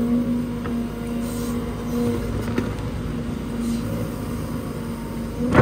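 Hydraulic excavator at work: its diesel engine runs under load with a steady whine from the hydraulic pump, loudest as the bucket digs in during the first couple of seconds. A sharp clank comes at the very end.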